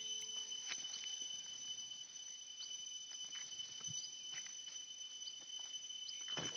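Steady chirring of crickets or similar insects, holding two high, even tones throughout. Faint scattered ticks and rustles lie over it.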